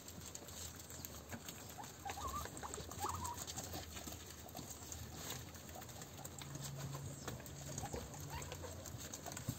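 A herd of guinea pigs feeding on fresh grass stalks: a faint, steady patter of small clicks from chewing and rustling leaves. A couple of brief high squeaks come about two and three seconds in.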